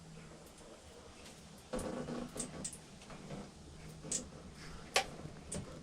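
Faint clicks and taps as the controls of an oil-filled radiator heater are turned up to high, a sharper click about five seconds in, over a low steady hum.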